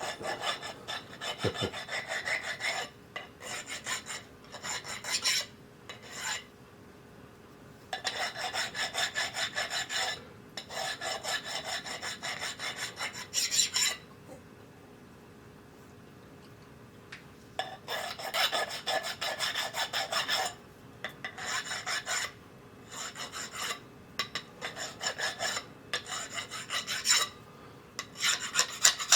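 Hand file deburring small metal parts: bursts of quick rasping strokes with short pauses between them, and a longer pause a little past the middle.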